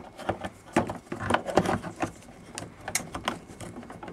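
Irregular clicks and knocks of a red Mennekes three-phase industrial plug being handled and pushed into its socket.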